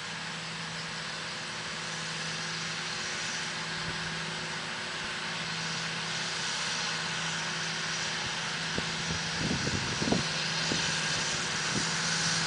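John Deere 8330 tractor's six-cylinder diesel engine running steadily under load as it pulls a Rabe tillage implement across the field, its drone growing gradually louder as it comes closer. A few dull thumps come about three-quarters of the way through.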